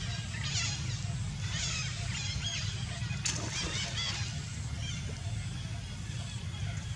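Macaques giving short, high squeals and chirps, repeated several times and thinning out after about four seconds, over a steady low rumble.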